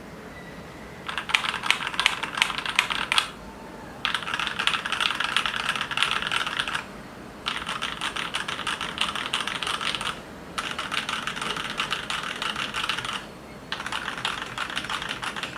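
Typing on a Keychron K2 mechanical keyboard with lubed and filmed Durock T1 tactile switches and foam in the case. A first burst of separate keystrokes, then four runs of fast typing of about three seconds each, split by short pauses.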